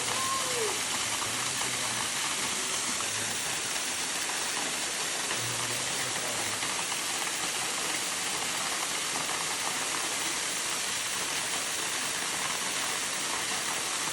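Waterfall rushing: a steady, even hiss of falling water that does not let up.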